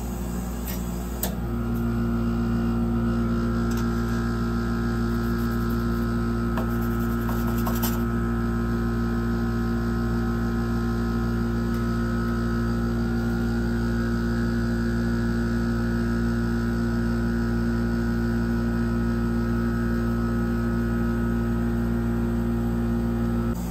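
Steady electrical hum of the ice-roll machine's refrigerated cold plate, its compressor running, growing louder about a second and a half in.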